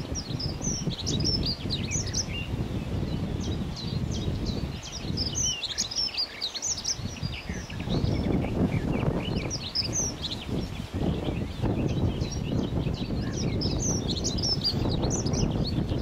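Songbirds singing: many short, high chirps and warbled notes, over a steady low rumble.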